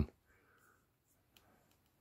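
Near silence after a man's voice stops at the very start, with a few very faint ticks.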